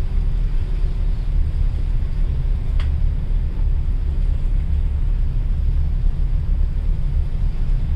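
Steady low rumble with wind buffeting the microphone, like being out in the open by a ship passing through a canal. A faint short click comes about three seconds in.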